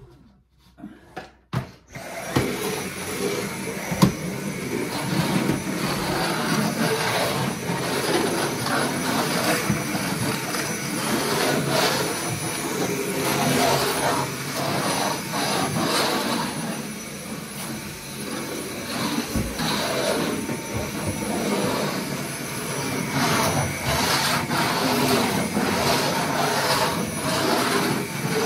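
Vacuum cleaner starting up about two seconds in and then running steadily, its level swelling and dipping as it works, with a knock about four seconds in.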